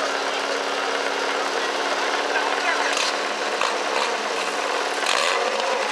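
An engine running steadily with a low hum, its pitch dipping briefly near the end, under the chatter of a crowd.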